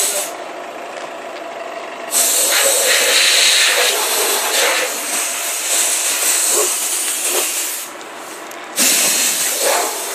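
Compressed-air blow gun on a thin air hose hissing in long blasts, dropping to a quieter hiss twice, from just after the start to about two seconds in and again briefly near the end.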